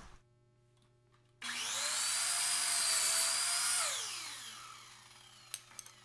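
Electric mitre saw motor switched on: it whines up to speed about a second and a half in and runs at a steady pitch for about two seconds. When released it winds down with a falling whine. A couple of sharp clicks come near the end.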